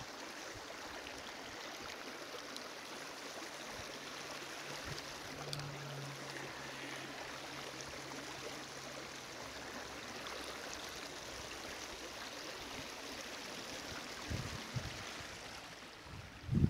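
Shallow river water rippling and gurgling steadily over rocks and stones, with a couple of low thumps near the end.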